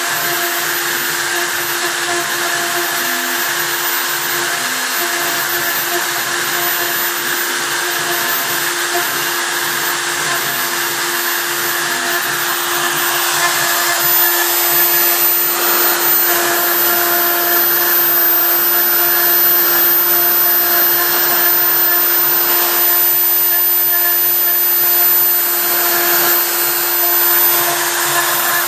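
Handheld router mounted as the spindle of a homemade CNC machine, running with a steady high motor whine while its bit carves lettering into a wooden plank. The cutting noise gets a little louder about halfway through.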